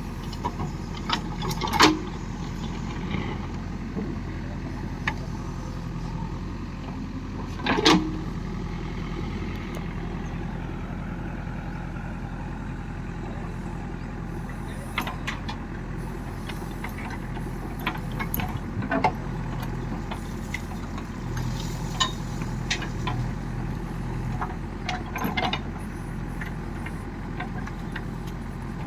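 Diesel engine of farm machinery running steadily at a low, even speed, with scattered sharp knocks; the two loudest come about two and eight seconds in.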